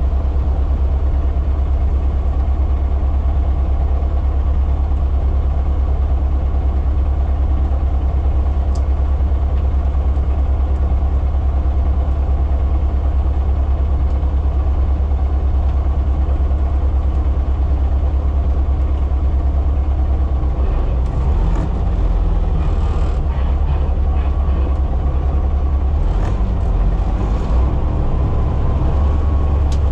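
Front-load garbage truck's diesel engine running steadily, heard from inside the cab. Its low note changes about two-thirds of the way through, as the arms lift the dumpster.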